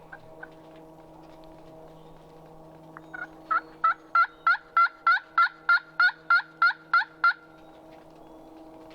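Turkey yelping: a run of about thirteen evenly spaced yelps, roughly three a second, each breaking from a low note to a higher one, louder after the first few.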